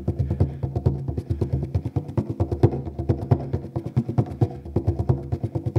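Concertina playing an instrumental break: held low chords with a quick, even run of sharp taps over them.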